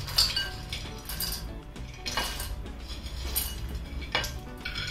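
A spoon scraping and clinking on a plate as dried fruits and nuts are pushed off it into a glass bowl, with a few sharp clatters. Soft background music plays underneath.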